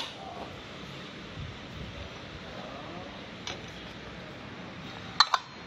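Small clicks from hands working on an overlock sewing machine: a faint click about three and a half seconds in and two sharp clicks in quick succession near the end, over a steady background hiss. The machine itself is not running.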